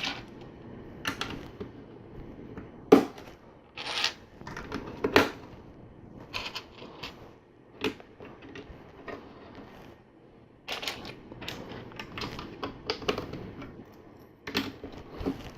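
Plastic LEGO pieces clicking and knocking as they are handled and pressed onto plates, in scattered single clicks with a busier run of clicks a little after the middle.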